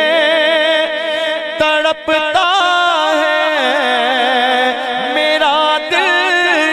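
A man's voice singing an Urdu naat, drawing out long wavering notes between lines of the verse, with a short break about two seconds in.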